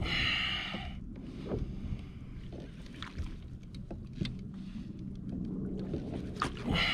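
Water lapping and sloshing against a plastic kayak hull, with wind on the microphone, while a Shimano Ocea Jigger conventional reel is cranked against a heavy fish; scattered small clicks and knocks come from the reel and rod gear. A brief hissing rush is heard in the first second.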